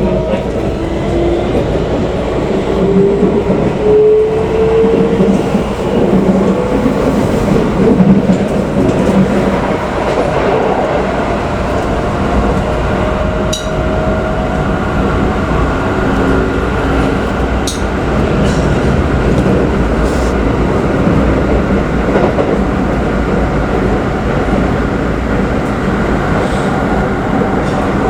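Keikyu New 1000 series electric train running, heard from inside the carriage: a steady rumble of wheels on rail, with a motor whine that rises in pitch during the first few seconds as the train gathers speed. A couple of sharp clicks sound about halfway through.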